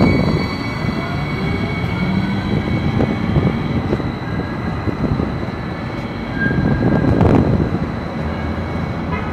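Hudson-Bergen Light Rail electric light rail train running at a street-level station: a steady low rumble with a thin, high, steady whine, swelling briefly about seven seconds in.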